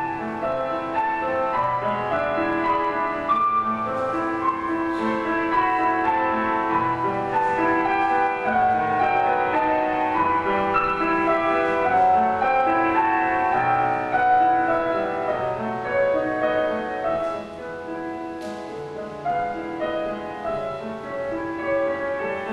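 Piano music in a classical style, a melody moving over lower notes.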